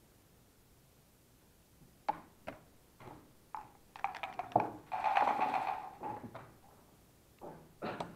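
Backgammon checkers and dice clicking on the board: scattered clicks from about two seconds in, a longer rattle around five seconds, then more clicks near the end.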